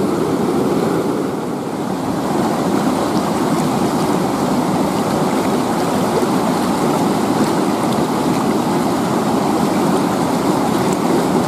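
Fast, shallow river water rushing and churning around boulders: a steady, unbroken noise.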